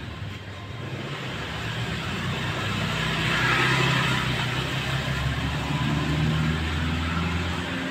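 A motor vehicle's engine running close by, swelling to its loudest about halfway through and then holding, over street traffic noise.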